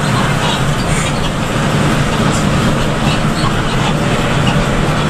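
Steady engine drone and road noise inside the cab of an intercity bus driving at speed on a wet road in rain.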